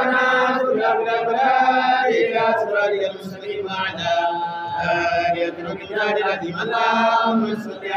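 A group of men chanting dhikr together in unison, phrase after phrase with short breaks between them.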